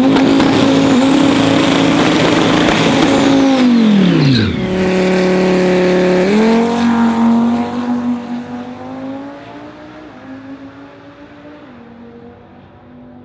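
A 2400-horsepower Dodge Viper's V10 held at high revs with the tires squealing in a burnout, then the revs drop to a lower steady note. About six seconds in the revs come up again at the line, the car launches, and the engine note fades down the drag strip, stepping in pitch a few times as it shifts.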